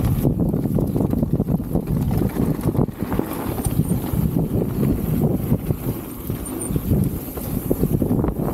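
Specialized Status 160 mountain bike being ridden down a bike-park trail. Wind buffets the action-camera microphone, and tyre noise on the dirt mixes with a continual light rattle and knocking from the bike over the bumps.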